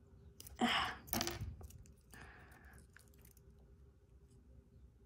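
Flush cutters snipping small plastic parts off a model kit's plastic runner: two sharp crisp snips within the first second and a half, then a soft rustle of the runner being handled.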